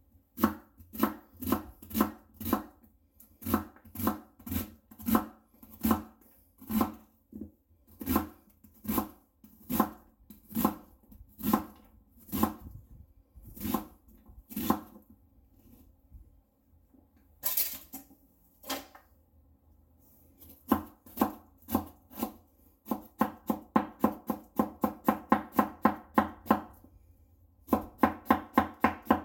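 Kitchen knife chopping an onion on a wooden cutting board. Single strokes come about two a second, stop briefly near the middle, then give way to quicker runs of rapid chops near the end.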